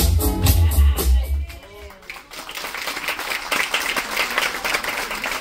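Loud music with a heavy bass beat cuts off about a second and a half in, and an audience starts applauding.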